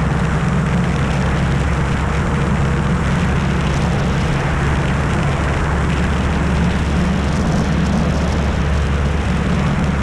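Piper Colt's four-cylinder Lycoming engine and propeller running steadily, heard from inside the small fabric-covered cabin with the rush of air over the airframe, a constant low drone under a wide hiss.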